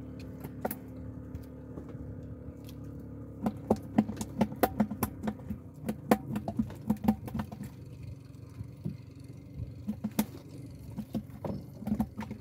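Steady low hum of a boat engine running at idle, with irregular light clicks and knocks starting about three and a half seconds in.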